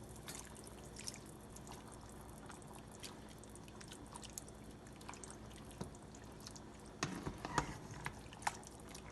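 Thick tomato chili being stirred in a pot: faint, scattered wet clicks and plops, with a louder stretch of stirring noise about seven seconds in.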